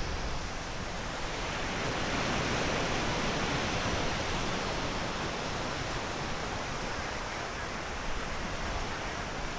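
Small waves breaking and washing up a sandy beach: a steady rushing of surf that swells a little a couple of seconds in.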